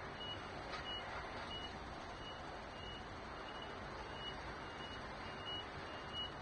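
A high electronic beep repeating about three times every two seconds, over a steady hum of city traffic: typical of a vehicle's reversing alarm in the street below.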